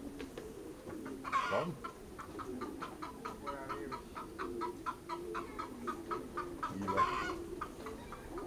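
Pigeons cooing, low wavering calls that run on, under a quick run of clucking notes at about four or five a second, with two louder, harsher calls about a second in and near seven seconds in.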